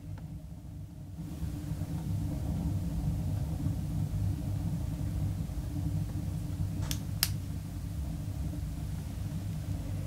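A steady low rumble that grows louder after about a second, with two sharp clicks about a quarter of a second apart some seven seconds in.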